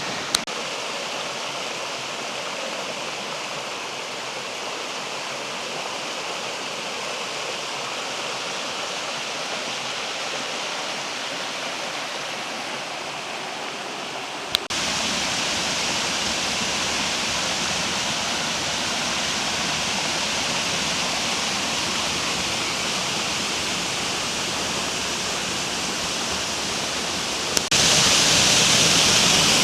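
Waterfall rushing: a steady noise of falling water, in three stretches joined by sharp clicks near the start, about halfway and near the end, each stretch louder than the one before.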